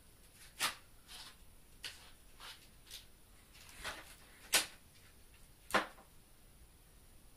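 Cats clambering among toys and papers on a shelf, making a scatter of short rustles and light knocks. The loudest come about half a second, four and a half and nearly six seconds in.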